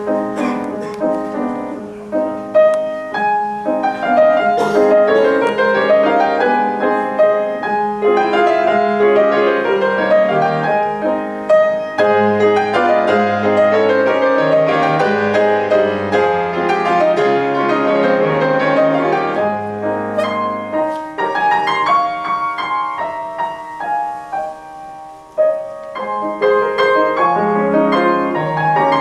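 Grand piano played solo: a busy passage of many quick notes over a moving bass line. It drops briefly to a softer passage about three-quarters of the way through, then comes back loud.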